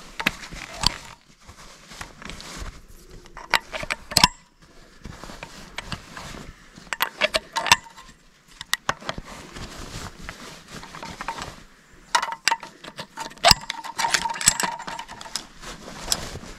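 Cartridges being pushed one at a time into the revolving drum of a Polish RGA-86 26 mm grenade launcher: irregular metallic clicks and rattles, with one sharper click a little past the three-quarter mark.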